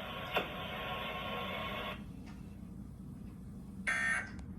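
Emergency Alert System end-of-message signal: a short buzzing burst of digital data tones about four seconds in, the first of the repeated end-of-message bursts that close an EAS broadcast. Before it, a steady hiss cuts off about two seconds in.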